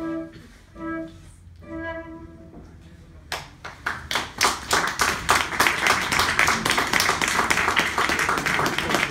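Flute and classical guitar play their last few notes, then after a short pause an audience breaks into applause about three seconds in, clapping steadily and louder than the music.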